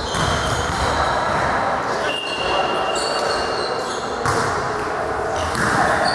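Indoor volleyball match in a sports hall: a steady wash of voices and crowd chatter echoing around the hall, with thuds of the ball and short, high squeaks coming and going.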